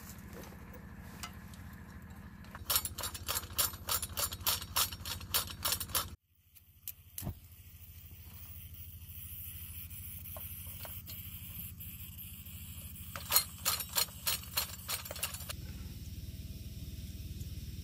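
A portable gas canister stove's burner hissing steadily once lit. It comes after a quick run of sharp clicks, and another run of clicks comes near the end.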